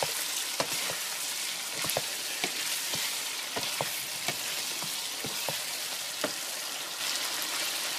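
Chicken and masala frying in oil in a karahi, sizzling steadily, with a spatula knocking and scraping against the pan every second or so as it is stirred. This is the bhuna stage: the cooking water has been dried off and the masala is fried until the oil separates.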